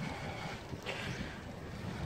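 Wind buffeting the microphone of a camera on a moving bicycle: an uneven rushing with low gusts.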